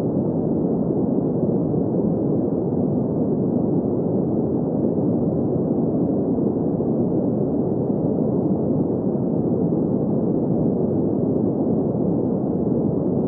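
Steady, unchanging sleep noise: an even rushing hiss centred in the low and middle range with no high hiss, of the kind sold as green noise.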